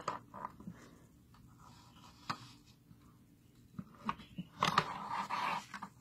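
Handling noises at a stopped mini sewing machine: a few sharp clicks and light knocks. Then a patch of rustling about four and a half seconds in as the denim is drawn out from under the presser foot.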